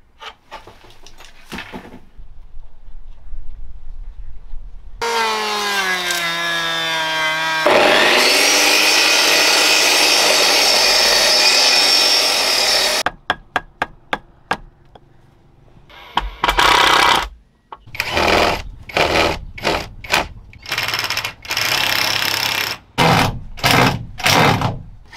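Power tools cutting wood. A motor's whine falls in pitch, then a band sawmill cuts through a log with a loud steady noise for about five seconds. Near the end comes a string of short power-tool bursts with pauses between.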